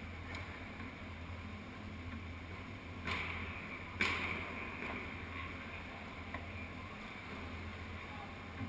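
Small go-kart engines idling steadily with the karts stopped. Two sudden louder noises come about three and four seconds in, the second sharper and fading over about a second.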